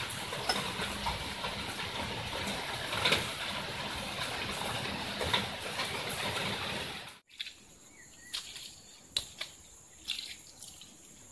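A steady rushing noise with a few clicks that cuts off sharply about seven seconds in. It gives way to a much quieter background with a high steady insect drone and a few short chirps.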